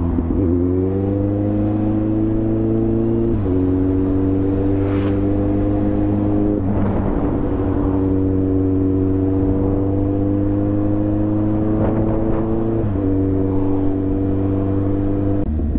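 Motorcycle engine pulling steadily under acceleration, its note slowly rising and then dropping sharply as the rider changes up a gear, three times, with road and wind noise underneath.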